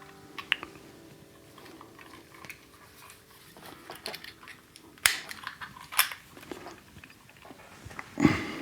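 Handling noise from an electric guitar being picked up and set on a scale: scattered small clicks and knocks, sharper knocks about five and six seconds in, and a louder thump near the end. Loose strings ring out faintly at the start.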